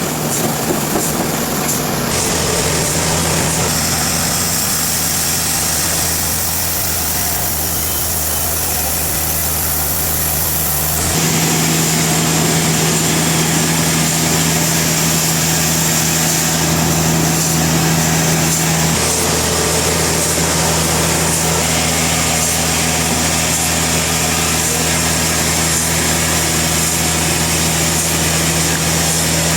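Sawmill machinery running with a steady engine-like drone. About a third of the way through, the sound changes suddenly and becomes a little louder, then holds steady.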